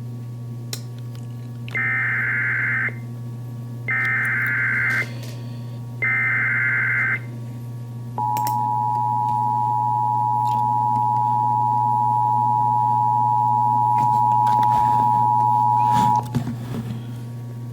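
Emergency Alert System tones from a NOAA Weather Radio broadcast. Three short bursts of digital SAME header data are followed by the two-tone attention signal, held steady for about eight seconds. The tones announce a flash flood warning, and a steady low hum runs underneath.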